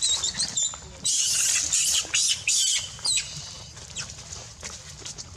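Monkey squealing: repeated high-pitched cries that bend up and down in pitch, coming in bursts over a low rumble.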